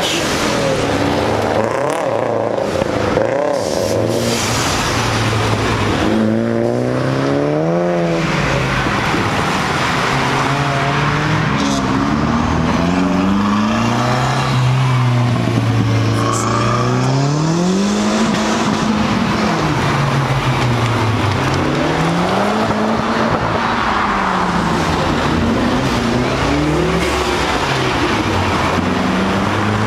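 Car engines revving as several cars pull away one after another, their pitch climbing and dropping repeatedly as they accelerate and change gear, over steady road and crowd noise.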